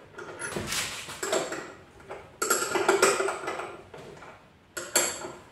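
Clinking and rattling of metal and plastic windscreen-bracket parts being handled and fitted to a scooter's handlebars, in three short bouts, the loudest in the middle and a brief knock near the end.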